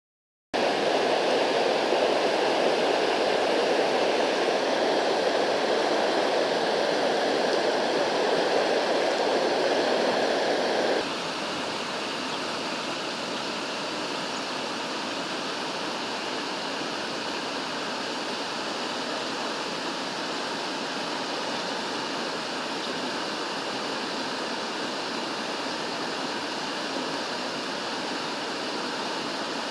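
Steady rush of flowing water, like a stream or waterfall. It drops suddenly to a quieter, thinner rush about eleven seconds in.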